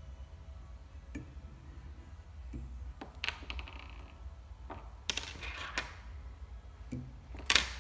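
Small clicks and short scratchy rustles of fly-tying handwork, made by a whip-finish tool wrapping thread on the fly and then scissors trimming it, the loudest click near the end. A steady low hum runs underneath.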